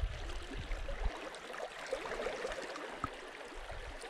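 Small waves lapping and trickling against shoreline rocks, with a few soft knocks.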